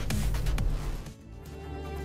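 Electronic music with a steady kick-drum beat of about two strikes a second, which drops out about a second in, leaving a quieter stretch of held tones that swells back up.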